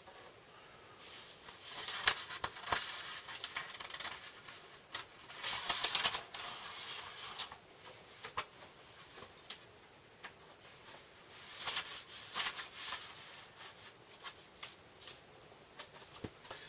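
Vinyl records and their paper inner sleeves and card covers being handled: several bursts of rustling and sliding, with light clicks and taps in between.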